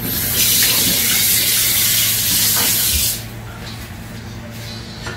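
Rushing water hiss for about three seconds, cutting off abruptly.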